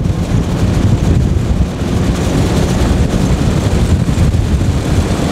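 Strong wind buffeting the microphone: a loud, steady low rumble with a hiss over it.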